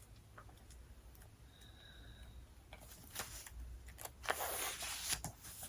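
Pages of a paper catalog being turned and rustled. The rustling starts about three seconds in, after a quiet stretch, with a few small clicks.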